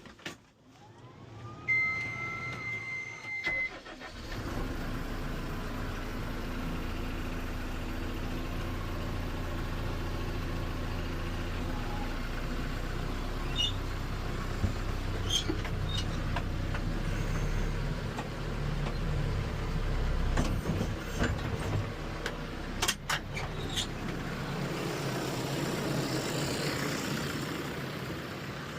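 A jump-started backhoe's diesel engine is cranked by its starter while a steady high beep sounds. It catches about four seconds in and then runs steadily, with a few sharp clicks and knocks.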